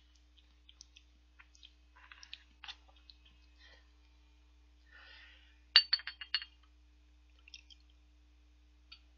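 Small glass clinks as a soju shot glass and green glass bottle are handled: a quick run of four or five sharp clinks about six seconds in, with a few softer clicks scattered before and after.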